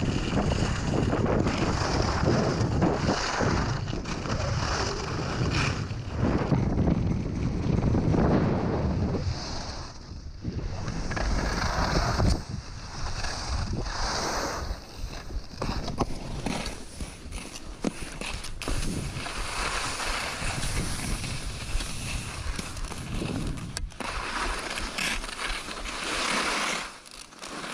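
Skis scraping and hissing over hard, icy snow, the sound swelling and fading in surges with each turn, with wind buffeting the microphone.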